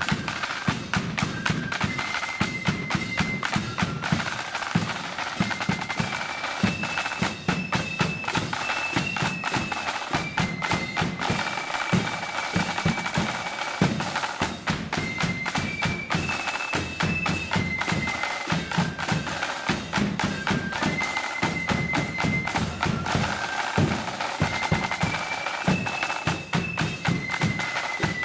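Marching flute band playing a tune: flutes in unison carry a high melody of held notes over rapid snare drum strokes and a bass drum beat.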